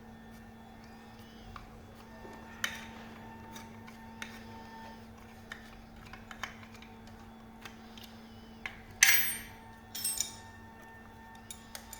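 Hand tools and small fasteners clicking and clinking during disassembly work, with a louder rattling clatter about nine seconds in and another about a second later, over a faint steady hum.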